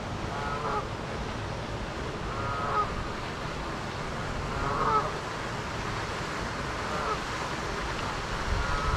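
Canada geese honking: about five short calls spaced roughly two seconds apart, over a steady rushing background.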